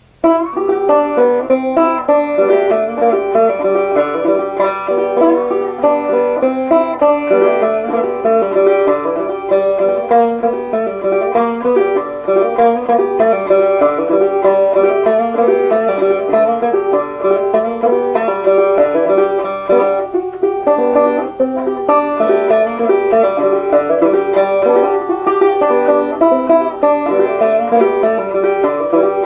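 Solo banjo played unaccompanied, a steady stream of plucked notes.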